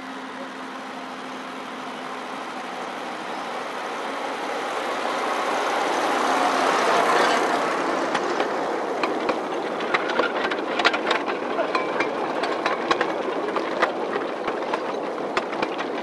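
Small 2 ft gauge diesel locomotive's engine running, growing louder as it approaches and passes about seven seconds in. It is followed by a train of loaded four-wheeled coal tubs rolling by, their wheels clicking and clattering sharply on the rails.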